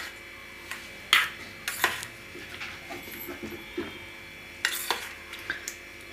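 A steel spoon stirring a thick fruit custard in a stainless steel bowl, clinking and scraping against the metal in a few scattered strokes: a cluster about a second in and another near the end.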